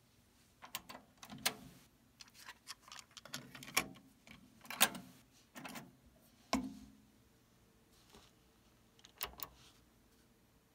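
Plastic clicks and clunks of a Yamaha KX-1200U cassette deck being handled: a cassette is loaded and the cassette door shut, then the spring-loaded cover over the recording controls is pressed and clicks open. The clicks come in a quick irregular run for the first six or seven seconds, then two more near the end.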